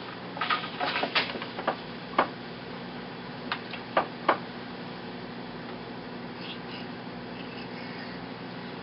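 Wooden hand loom knocking and rattling as it is worked: a quick cluster of knocks in the first two seconds, then a few single knocks around four seconds in, over a steady low hum.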